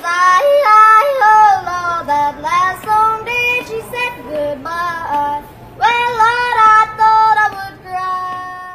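A recorded song playing: a high solo voice sings a melody. It breaks off briefly about five seconds in and ends on a long held note that fades away.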